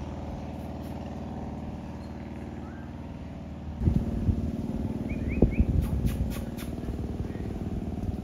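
An engine running steadily, getting louder about four seconds in, with a few sharp knocks after that. Faint short chirps sound above it.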